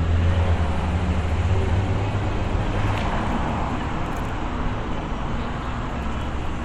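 City street traffic: a steady rumble of vehicles, with a low engine hum that is strongest for the first couple of seconds and then eases.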